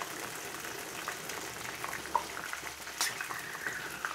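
Battered sweetcorn fritters deep-frying in hot oil in a wok: a steady sizzle with scattered small pops as the oil spits from the water in the sweetcorn. About three seconds in, a metal spatula clinks once against the wok, which rings briefly.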